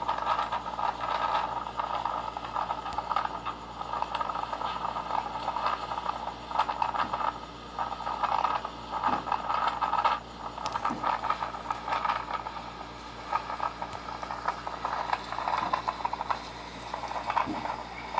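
Typhoon wind blowing with constant rattling and crackling, heard second-hand through a small device speaker, so it sounds thin.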